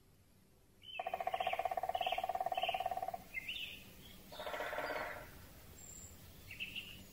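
Great spotted woodpecker drumming on a tree: a long, rapid roll of beats starting about a second in and lasting about two seconds, then a shorter roll around four and a half seconds in. Small birds chirp briefly over the drumming.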